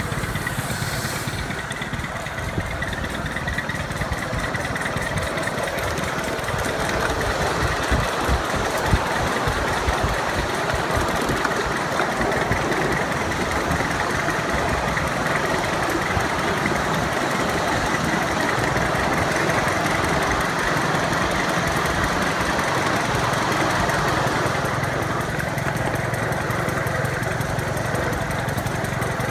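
Small engine of a ride-on miniature train running steadily as the train travels along the track. Short rattles and clicks from the cars rolling over the rails, thickest several seconds in.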